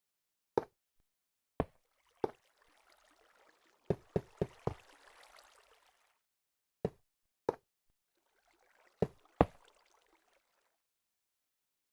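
A series of about eleven sharp knocks, some in a quick run of four about four seconds in. Two stretches of faint hiss of running or splashing water come between them.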